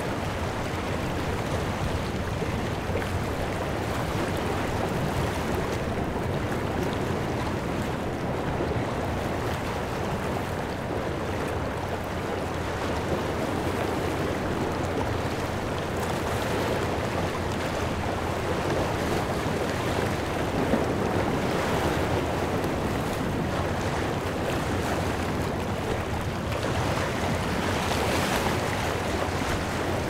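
Small harbour waves lapping and splashing against shoreline rocks, with a steady low rumble underneath. The splashing grows a little brighter near the end.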